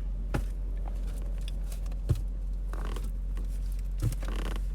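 Trading-card packs and boxes handled by hand: three soft knocks spread through, and a couple of short rustles, over a steady low hum.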